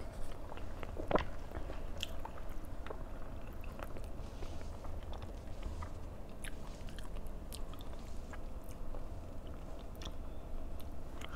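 A person chewing and eating close to the microphone: soft chewing with scattered small clicks and smacks, a sharper click about a second in, over a low steady hum.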